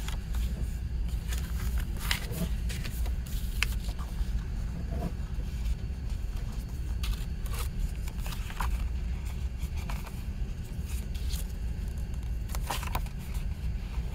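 Paper inner sleeve and disc packaging being handled: scattered rustles and light clicks over a steady low background hum.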